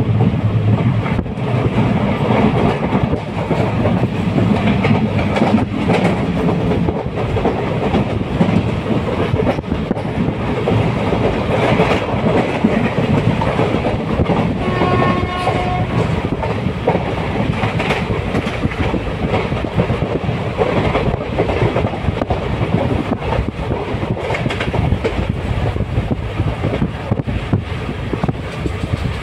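Moving train running along the rails, wheels clicking over the rail joints in a steady loud rumble, with a brief horn sounding about halfway through.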